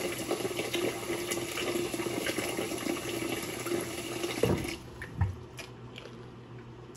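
Kitchen faucet running a steady stream into a stainless steel sink, cutting off about two-thirds of the way in. A few light knocks follow.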